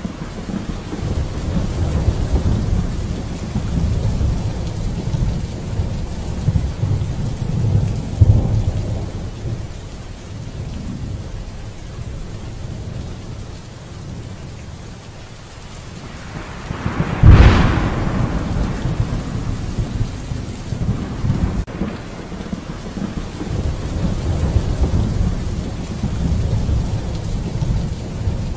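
Rain falling steadily with rolling thunder rumbling. A sharp, close thunderclap about seventeen seconds in is the loudest moment, coming after a quieter lull.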